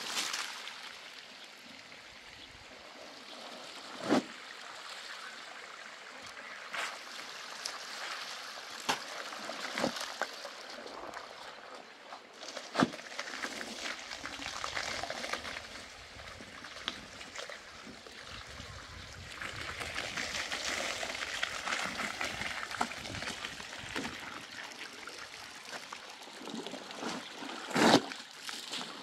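Water trickling and splashing, with a sharp knock now and then, the last one near the end the loudest. The water gets louder for a few seconds a little past the middle.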